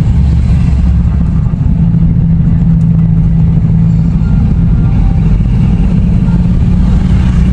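Car engine and road noise heard from inside the cabin: a steady low rumble with a constant hum.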